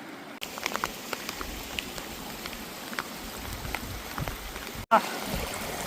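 Steady rain, with scattered close drops tapping irregularly over the hiss.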